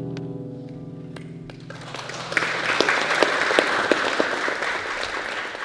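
The final chord of a classical guitar ensemble rings and dies away. About two seconds in, audience applause starts and goes on steadily.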